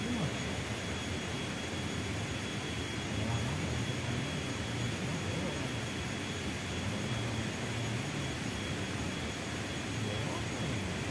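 Steady outdoor hiss with a thin, high, unchanging whine over it, and faint voices now and then.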